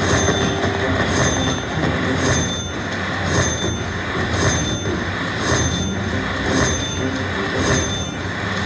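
Bao Zhu Zhao Fu slot machine tallying its bonus win: a repeating ringing chime, struck about once a second, over a continuous jangle of machine sounds as the credits count up.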